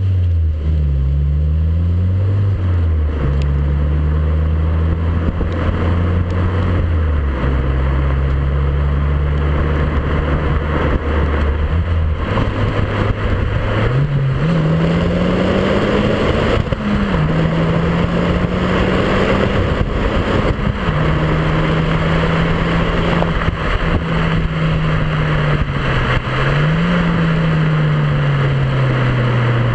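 Exhaust of an Opel Corsa OPC Nürburgring Edition's 1.6-litre turbocharged four-cylinder, heard close at the tailpipe while driving. The engine note drops and climbs several times with gear changes and throttle, over a steady rush of road and wind noise.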